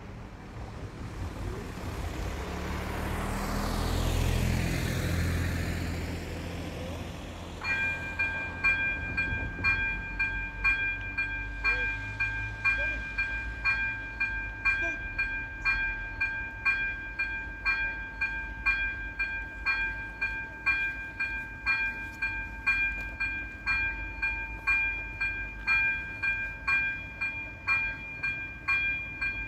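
A car passes over the crossing, its engine and tyre noise swelling to a peak about four seconds in and then fading. About eight seconds in, the level crossing's electronic warning bell starts, ringing in steady, rapid repeated strokes as the red lights flash for an approaching train.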